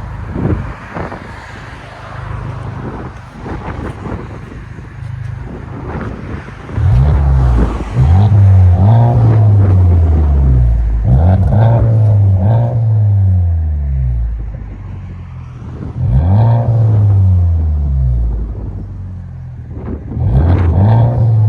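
Honda Civic Type R's turbocharged 2.0-litre four-cylinder through a Remark Ti-Spec cat-back exhaust, idling, then revved in a series of blips from about seven seconds in, each climbing in pitch and falling back to idle.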